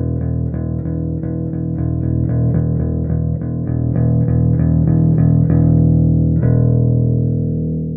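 Hiwatt Bulldog 440 bass amplifier with a Squier Precision Bass and its DiMarzio Model P pickup: a quick run of plucked bass notes, about four a second. Near the end a single note is left to ring and fade.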